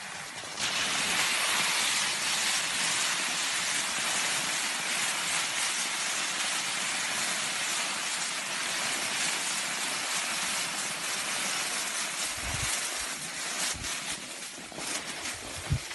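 Skis gliding over packed snow with a steady hiss. A few low thumps on the microphone come in near the end.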